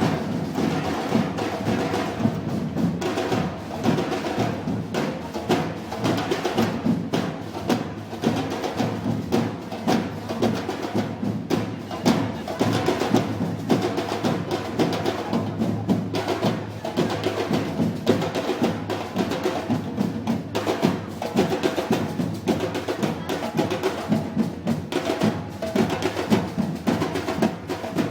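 Live band music with steady pitched instruments over prominent, rhythmic drums and percussion, typical of a Moros y Cristianos festival band.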